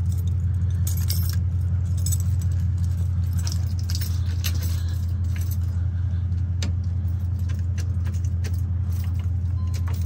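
A car engine idling with a steady low rumble, with keys jangling on and off.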